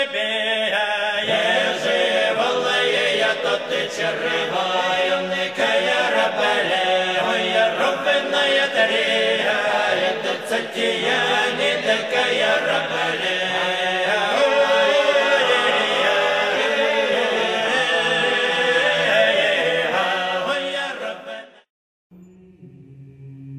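Background music of chanted choral singing that stops abruptly near the end; after a brief gap, a quieter piece with low held notes begins.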